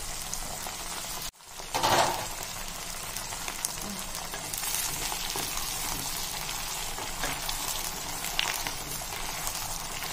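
Brinjals, small onions and garlic frying in hot sesame oil in a stainless steel pot, with a steady sizzle that is briefly louder about two seconds in. A wooden spatula stirs and scrapes the vegetables in the pot.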